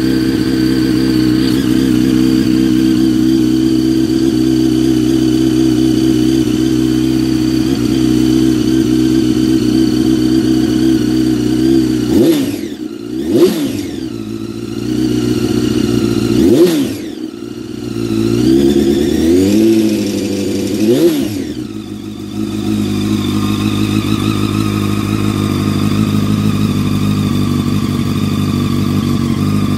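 Honda CBR929RR's 929 cc inline-four engine idling steadily while still warming up after a cold start. About halfway through it is revved in several quick throttle blips that rise and fall in pitch, then it settles back to idle.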